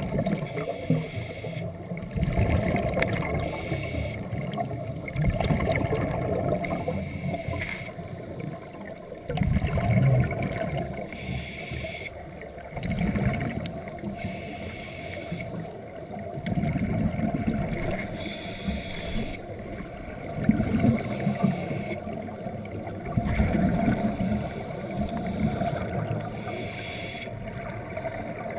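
Scuba regulator breathing underwater: a rush of exhaled bubbles surging every three to four seconds over a steady underwater hum, muffled by the camera's waterproof housing.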